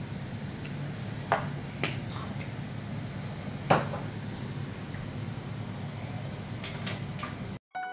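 Kitchen room tone: a steady low hum with a few light clicks and knocks, the sharpest about three and a half seconds in.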